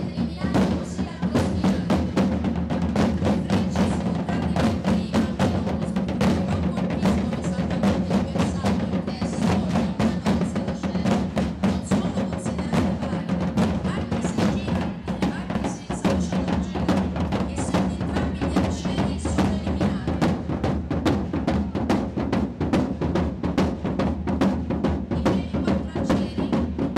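A group of side drums played together in a steady, dense rhythm of many strokes a second, as for a medieval-style procession or dance.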